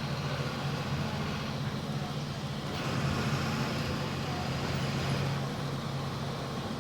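Volkswagen 17.230 EOD bus diesel engine running at high revs while driving, a steady drone over road noise, a little louder in the middle.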